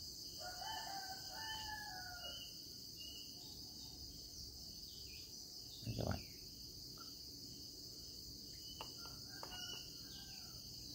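A rooster crows once in the background for about two seconds, with its pitch dropping at the end, over a steady high insect chirring. A single dull thump comes about six seconds in, and there are fainter calls and small clicks near the end.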